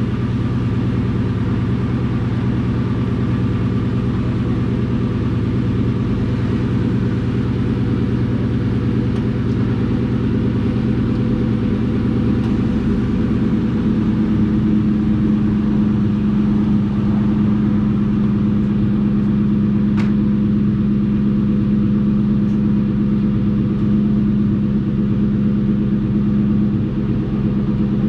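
Ford Mustang GT's 4.6-litre two-valve V8 idling steadily through a DNA Motoring cat-back exhaust and an off-road H-pipe, with a deep, even rumble from the tailpipe. The tone shifts slightly about halfway through.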